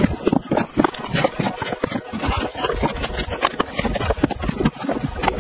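Manga paperbacks being pushed and slid into place along a shelf by hand: a quick, uneven run of taps, knocks and scrapes, several a second, as the volumes bump against each other and the shelf.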